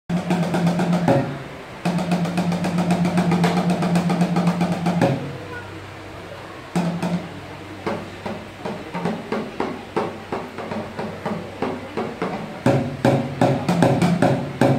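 Sticks beating plastic drums, a blue water jug and a white bucket, in a quick, uneven rhythm. A steady low held note comes and goes under the beats, returning about two-thirds of the way through.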